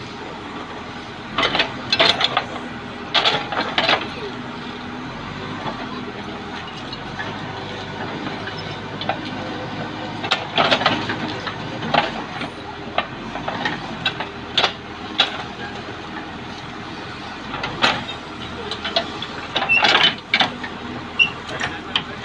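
Case 580L backhoe's diesel engine running steadily while it digs, with repeated sharp clanks and knocks from the bucket and boom working the ground.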